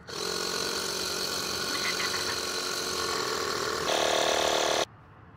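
Small portable tire inflator pump running steadily, pumping air into a low tire. Its tone shifts about four seconds in, and it cuts off abruptly near the end.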